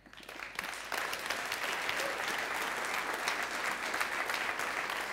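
Audience applauding: many hands clapping in a hall, building up over the first second and then holding steady.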